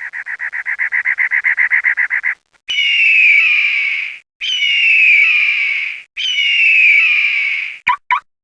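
Bird calls: a rapid trill of about a dozen notes a second for some two seconds, then three long, harsh calls of about a second and a half each, each sliding down in pitch, and two short chirps near the end.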